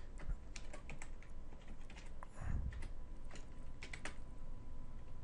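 Computer keyboard typing: a run of irregular keystrokes as a word is typed.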